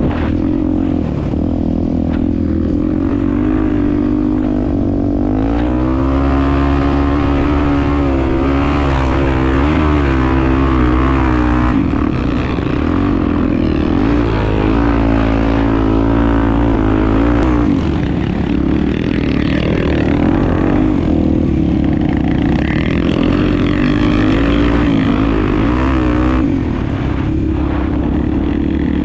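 Honda Tornado 250 single-cylinder four-stroke enduro motorcycle riding off-road, its engine note rising and falling again and again as the throttle is worked over uneven ground, with a heavy low rumble beneath.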